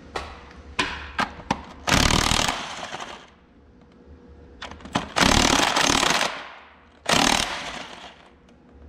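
Impact wrench working on connecting rod cap nuts: a few sharp metal clicks, then three loud bursts of about a second each, the second and third some three and two seconds after the one before.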